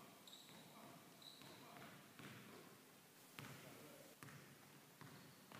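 Basketball dribbled on a hardwood gym floor, faint and echoing in the large hall, with two sharper bounces about three and a half and four seconds in.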